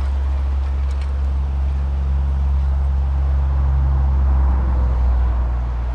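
A vehicle engine's loud, low, steady drone from highway traffic.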